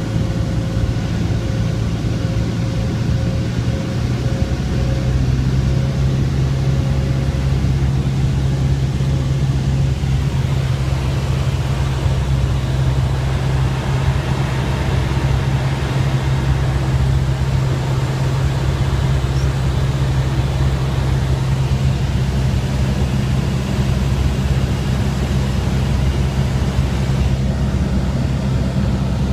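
Light single-engine airplane (Cessna 172R, Lycoming four-cylinder engine and propeller) droning steadily in flight, heard inside the cabin; its note shifts slightly a couple of times.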